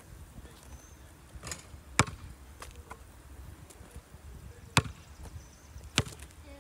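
Basketball bouncing on an asphalt driveway: a handful of sharp, separate smacks a second or more apart, the loudest about two seconds in and again near five and six seconds.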